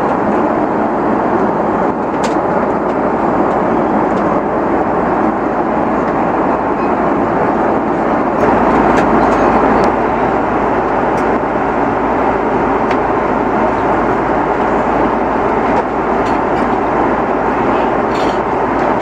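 Steady cabin noise inside an Airbus A330-300 airliner: an even rush of engine and airflow noise, with a few faint clicks.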